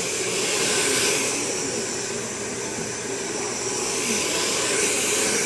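A hair dryer blowing steadily: an even rushing hiss of air over a low motor hum.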